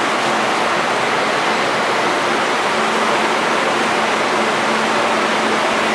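Steady, even rushing noise with a faint low hum running under it: the ambient noise of an underground railway station platform.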